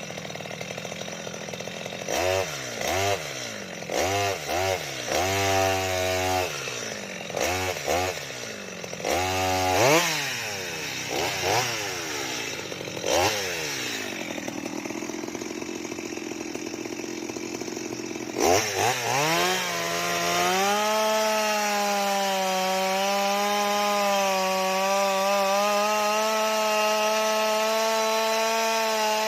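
Stihl MS 230 two-stroke chainsaw engine blipped repeatedly, its pitch rising and falling with each burst of throttle, then dropping to idle. About 18 seconds in it revs up again and holds a steady high speed to the end.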